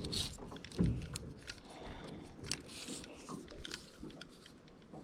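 Close handling noises in a jon boat: scattered light clicks, rustles and knocks, with a dull thump about a second in.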